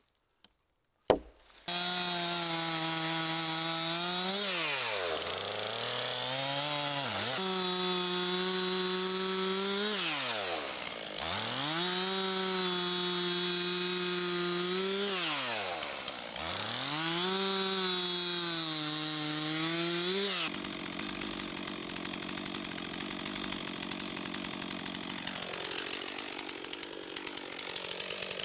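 Chainsaw bucking a log into 16-inch firewood lengths: it runs at high revs, with the throttle dropping back and picking up again four times between cuts. Near the end it settles into a rougher, steadier sound.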